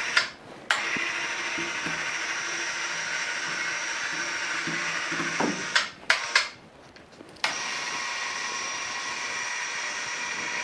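Electric overhead hoist motor running steadily while it lowers a heavy wooden panel on its cable. It runs for about five seconds, stops briefly with a few clicks, then runs again for about three seconds.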